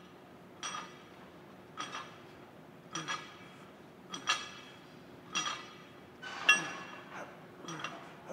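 Iron weight plates clinking on a barbell's sleeves with each rep of upright rows: a short metallic clink with a brief ring, seven times at an even pace of a little more than one a second.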